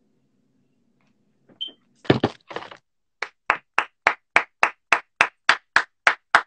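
Hand claps: a loud double smack about two seconds in, then from about three seconds in a steady, fast run of sharp claps, three to four a second.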